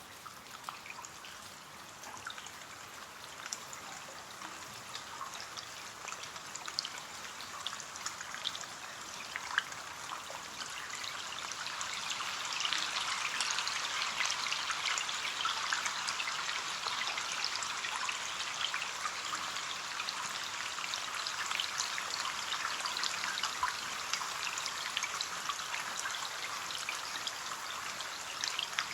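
Rain falling on a window pane: a steady hiss dotted with the small ticks of single drops. About a third of the way in it grows heavier and stays so.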